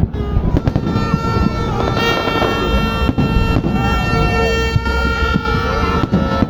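Noisy New Year's crowd: people's voices, steady blaring horn tones held throughout, a low rumble, and a few sharp bangs in the middle.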